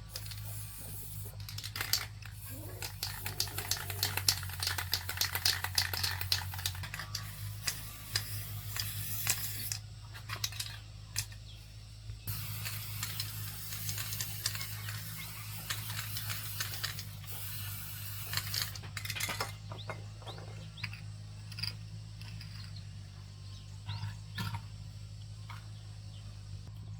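Metal objects being handled: many small clinks and taps, with stretches of scraping in the middle, over a low steady hum.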